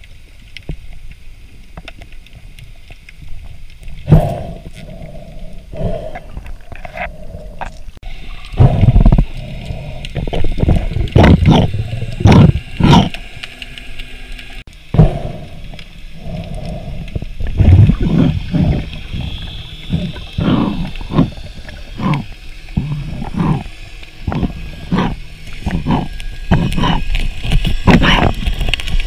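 Muffled underwater sound picked up by a diver's camera: irregular low rumbles and knocks from the diver's movement and the water, growing busier after the first several seconds.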